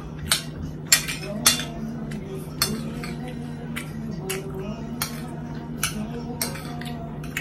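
Metal fork clinking and scraping against a ceramic dinner plate while food is picked up, about a dozen sharp clinks, the loudest about a second in.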